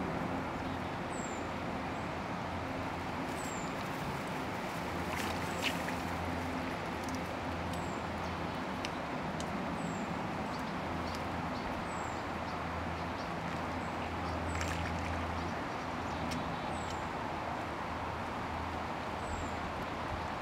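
Outdoor ambience: a steady low hum that fades in and out, with a short, high, falling chirp repeating about every two seconds and a few faint clicks.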